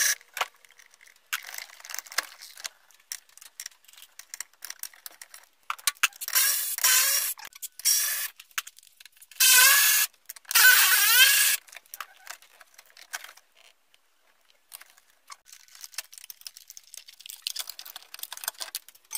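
Cordless electric ratchet whirring in several short bursts as it spins bolts out, its pitch sliding up and down as the motor speeds up and slows. Light metallic clinks and scrapes of loose bolts and tools come between the bursts.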